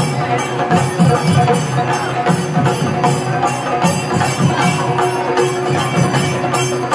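A group of chenda drums beaten with sticks in an ensemble, a dense, loud, continuous beat, with regular high clashes keeping a steady rhythm on top.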